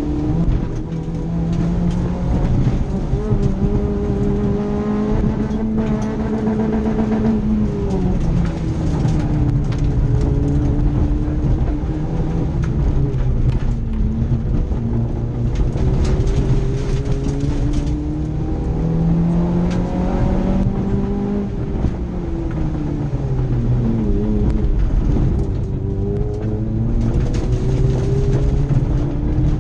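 Rally car engine heard from inside the cabin, driven hard: its pitch climbs under acceleration and drops at gear changes and braking, over constant road noise.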